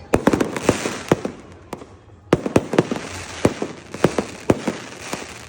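Aerial fireworks going off in quick succession: many sharp bangs with crackling between them, coming in two flurries, the second starting a little after two seconds in.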